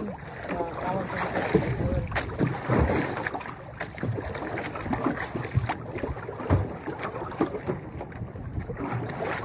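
Choppy sea water slapping and lapping against the hull of a small outrigger boat, with wind on the microphone and scattered light knocks.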